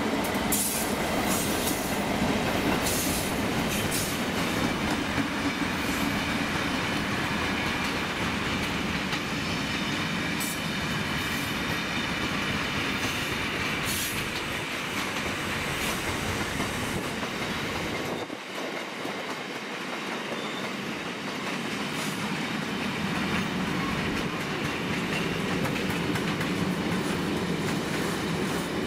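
Long freight train rolling past at speed: a steady rumble of wagon wheels with a clickety-clack over the rail joints.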